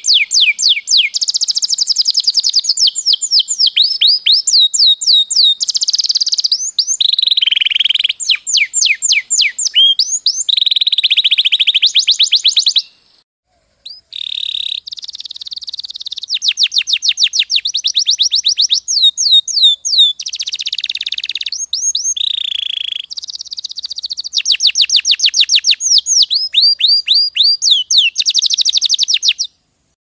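Domestic canary singing a long song of rapid trills. Each trill is a fast run of repeated sweeping notes, and the bird switches to a new trill every second or two, with a brief pause near the middle.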